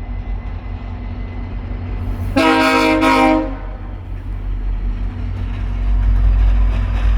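Via Rail EMD F40PH diesel locomotive's horn sounding one blast about a second long, a chord of several tones. Beneath it the locomotive's diesel engine runs with a steady low rumble, which grows louder near the end.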